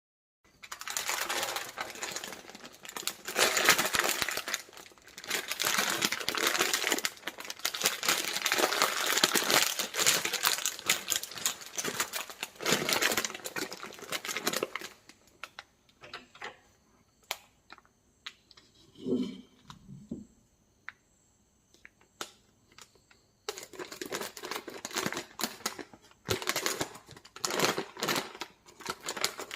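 Plastic wrappers of Twix Minis chocolate bars crinkling and crackling as the packaging is opened and handled. There are long stretches of dense crinkling, then a quieter middle part with scattered clicks, and the crinkling picks up again near the end.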